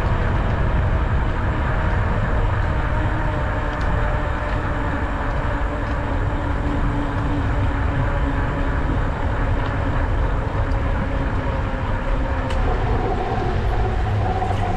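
Steady wind rush over an action camera's microphone and tyre noise from an e-bike rolling along a paved path, with a faint steady hum underneath and a few light ticks.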